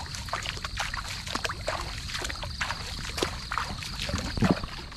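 Footsteps wading and sloshing through shallow marsh water and brushing through tall wet grass, in short irregular splashes and rustles, with a louder splash about four and a half seconds in. A steady high-pitched drone runs underneath.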